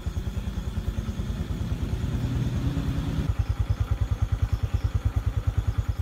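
Small motor-scooter engine idling with a steady low putter of about eight beats a second. A low hum lies over it through the first half.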